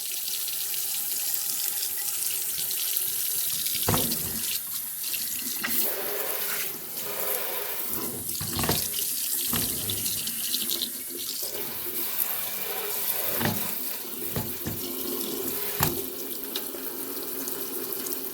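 Water running from a newly installed kitchen sink faucet into the sink, a steady rush with a few short knocks and clicks along the way. It is the faucet's first test after installation, with the water supply turned back on.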